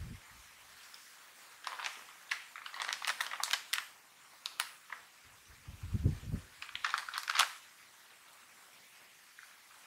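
Shiny Piattos potato-crisp bag crinkling and crackling as it is picked up and handled, in two spells, with dull low bumps about six seconds in.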